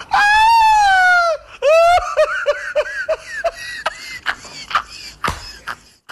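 A man's loud, high-pitched laughter: one long shrieking squeal, then a second whoop and a run of short 'ha's that taper off. A few sharp hand claps come in the second half.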